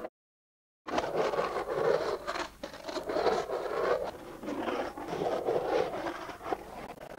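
Skateboard wheels rolling and carving across a concrete bowl: a steady rough rolling rumble with a few sharp clacks, one near the end as the board reaches the lip. The sound cuts out completely for the first second.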